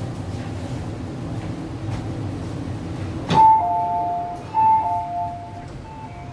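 MTR R-Train's door chime as the doors open: after a sharp click, a high-then-low two-note ding-dong played twice. A low rumble from the train runs in the first few seconds before it.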